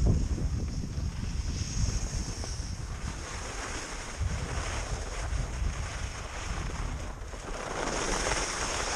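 Wind rushing over an action camera's microphone during a downhill ski run, with the hiss of skis sliding on snow; the noise swells a little near the end.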